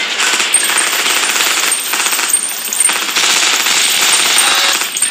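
Sound effect of rapid gunfire, many shots running together into a dense crackle, in three long bursts with short breaks between.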